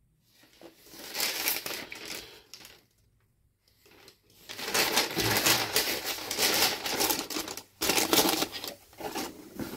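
Tissue paper crinkling and rustling as it is folded over a shoe inside a cardboard shoebox, in two spells: a short one about a second in and a longer, louder one from about halfway.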